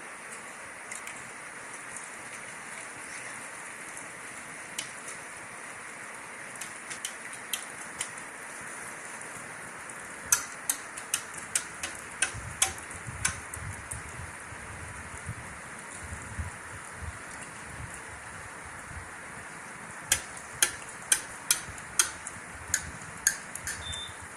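Metal kitchen utensils clinking as the herbal decoction is strained. A few light taps come first, then two runs of sharp, quick clicks, about two or three a second, about ten seconds in and again about twenty seconds in, over a steady hiss.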